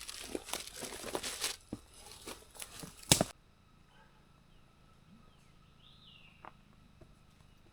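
Crunching and rustling of a hiker's footsteps through leaf litter and undergrowth, thinning out into scattered crackles and ending with a sharp knock about three seconds in. After that it is quiet, with one faint short call a few seconds later.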